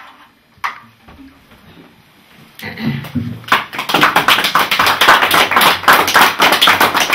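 A small audience clapping, starting about three and a half seconds in, after a few quiet seconds broken by a couple of knocks.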